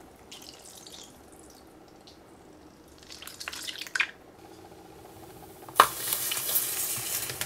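Gel-filled mesh stress balls squelching wetly as hands squeeze them. About six seconds in, a loud, steady sizzling hiss starts as a ball burns on heated wire mesh.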